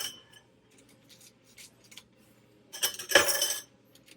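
Kitchen utensils and dishes clattering: a short clink at the start, then a louder, ringing clatter about three seconds in that lasts under a second.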